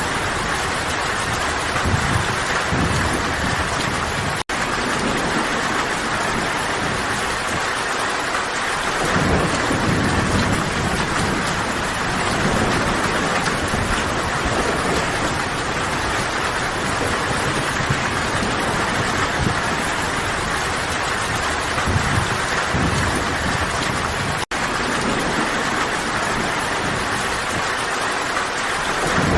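Steady, heavy rain falling as a dense even hiss, with low rumbling swells coming and going now and then. The sound cuts out for an instant twice, about four seconds in and again near the end.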